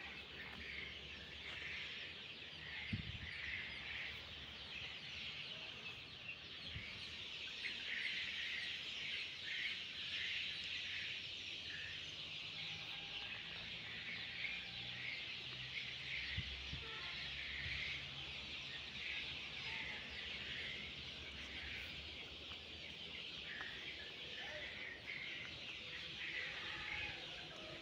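Many birds chirping and peeping at once in a dense, unbroken chorus, with a couple of low thumps.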